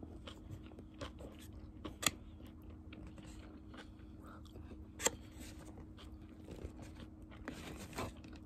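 Close-up eating sounds: chewing grilled meat and rice, with sharp clicks of plastic chopsticks against a plastic takeout tray, the two loudest about two and five seconds in. A faint steady hum runs underneath.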